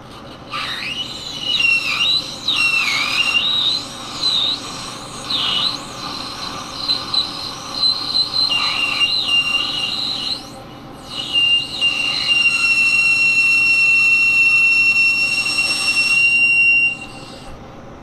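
Carbide insert cutting the end of a steel GM wheel hub on a Monarch lathe, with a loud, high squeal. The squeal wavers in pitch at first, then settles into one steady high tone for the last several seconds of the cut and stops about a second before the end. The hub material squeals under the cut.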